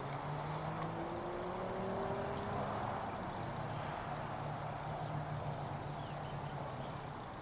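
A motor vehicle running, with a steady low hum and road noise, its engine tone rising in pitch over the first few seconds.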